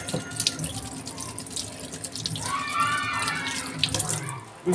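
Tap water running into a stainless steel kitchen sink as shrimp are rinsed by hand in a plastic basket, with splashing and small clatters, and a brief rising-and-falling tone partway through. The water stops just before the end.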